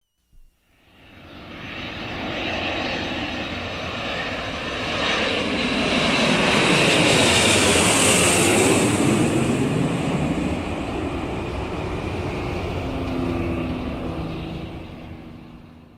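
An aeroplane flying overhead: its engine noise builds up, is loudest about halfway through with a rising and falling high hiss, then fades away.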